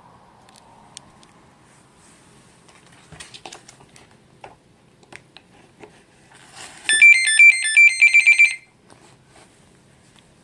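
Multicopter electronics beeping: a fast run of electronic tones stepping up and down in pitch for about a second and a half, starting about seven seconds in. Before it there are faint clicks and handling sounds.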